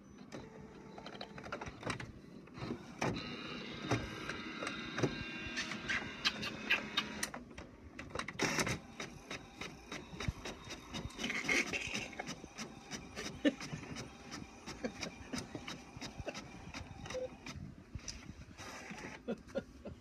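HP Officejet 4500 inkjet all-in-one printer printing a colour page: a run of motor whirring and repeated mechanical clicks as the page feeds out.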